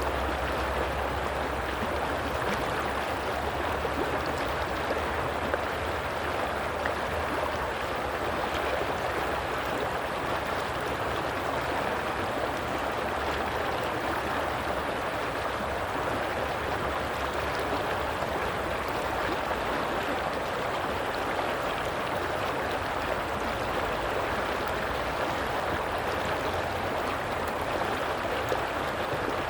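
Stream water flowing steadily, an even rushing splash with a low rumble underneath.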